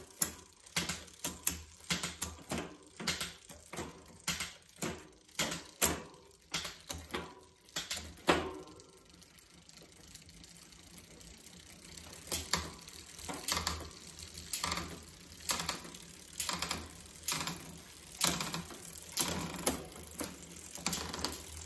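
A bicycle drivetrain is turned by hand: the chain runs over the cassette and through the Shimano Deore rear derailleur, with sharp clicks a little under two a second as it shifts across the cogs. There is a quieter stretch of smooth chain running in the middle before the clicking picks up again.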